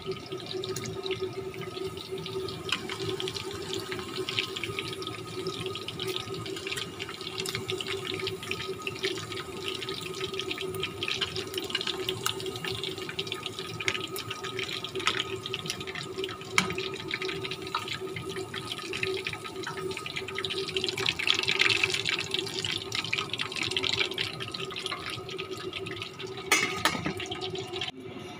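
Food bubbling and sizzling in pans on a gas stove: a steady crackling with scattered pops, over a steady low hum.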